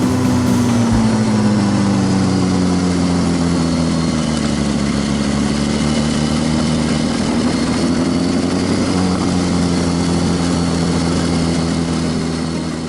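Sport motorcycle engine running at a steady cruise, its pitch easing slowly down and then back up, over a steady rushing hiss.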